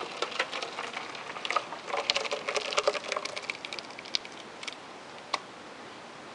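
Whey pattering and dripping from a cloth of vinegar-curdled milk curds into a pot as the curds are strained, in an irregular spatter that is thickest about two seconds in and thins to a few separate drips later.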